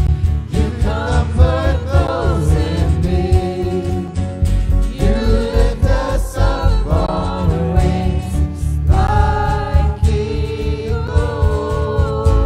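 Live worship band playing a slow praise song: several women's voices singing together into microphones over strummed acoustic guitar and keyboard, with a strong low bass underneath. From about nine seconds in the voices hold longer notes.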